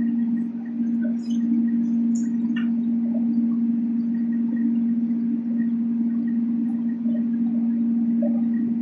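A steady hum at one low pitch, unbroken, with a few faint clicks over it.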